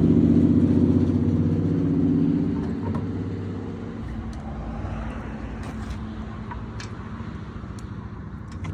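A car engine running, loudest at first and fading over the first few seconds to a low steady rumble.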